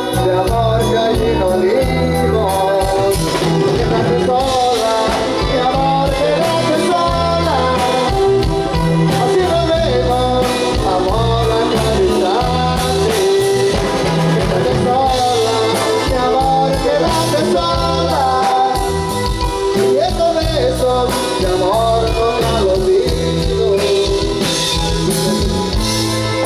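A live band playing amplified dance music through stage speakers, with drums and bass keeping a steady repeating beat under guitar, keyboard and saxophone, and singing over it.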